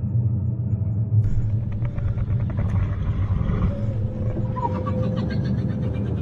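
A low, steady rumbling drone laid under an eerie night scene, with a faint, grainy higher layer joining about a second in.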